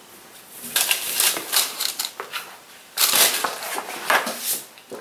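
Rustling and crinkling of a stiff new cotton bandana being handled, folded and put down, in two bouts, the second starting about three seconds in.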